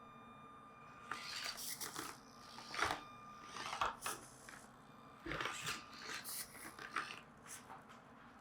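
Small 1/24-scale RC rock crawler clattering and scraping over the rocks of an indoor crawler course, in irregular bursts with a few sharp knocks.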